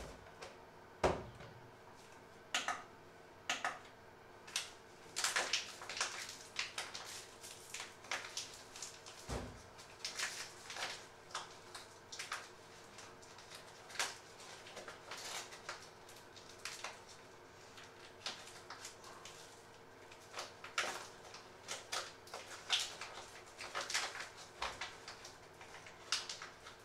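Kitchen handling sounds: scattered light clicks, knocks and rustles as hands move a hand mixer and a packet about over a stainless steel mixing bowl. Two dull thumps stand out, about a second in and about nine seconds in.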